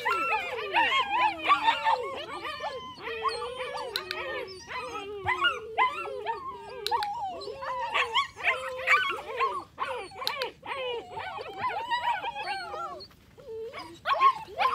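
Young puppies whining, whimpering and howling, many high wavering cries overlapping almost without a break, with a short lull near the end.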